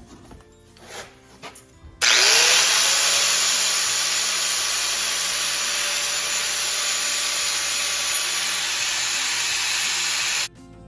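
A power tool motor spins up with a rising whine about two seconds in, then runs loud and steady for about eight seconds before cutting off abruptly.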